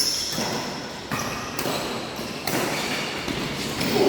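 Badminton play echoing in a large hall: sharp racket hits on the shuttlecock several times, with short high squeaks such as shoes make on the court floor.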